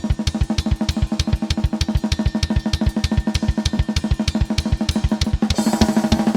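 Playback of a live-recorded metal drum kit: a fast, very even run of double-kick drum strokes under snare and cymbals, with the cymbals swelling near the end. The kicks have been gated and levelled with Drum Leveler so every hit comes through at the same strength.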